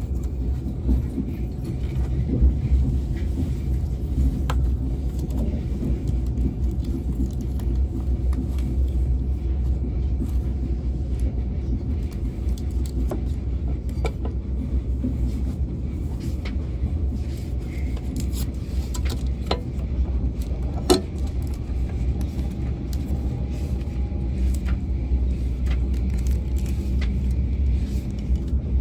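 Steady low rumble of an ICE high-speed train running, heard inside the passenger carriage, with scattered small clicks and rattles and one sharper knock about three-quarters of the way through.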